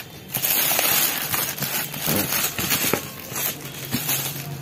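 Plastic packaging bag crinkling and rustling in the hands as a new vegetable chopper is lifted from its cardboard box and unwrapped.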